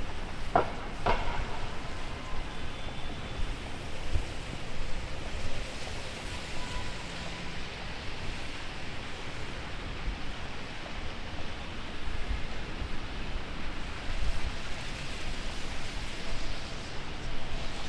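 Heavy rain falling steadily on a city street, an even hiss, with gusts of wind rumbling on the microphone. Two short sharp sounds stand out about half a second and a second in.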